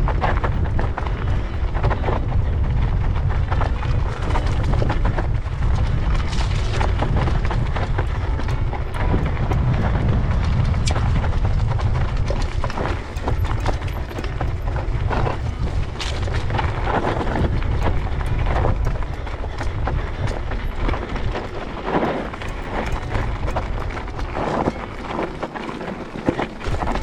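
Mountain bike descending a rocky trail, heard through a helmet-mounted action camera: a heavy wind rumble on the microphone with a constant clatter of tyres over loose stones and the bike rattling. The rumble eases in the last few seconds.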